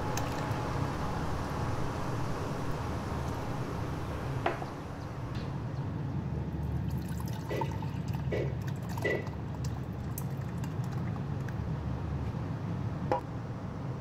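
Liquid pouring steadily, first water into a pot of crushed tomatoes, then tomato water into a glass bowl. About three separate drips plop into the liquid a little past halfway.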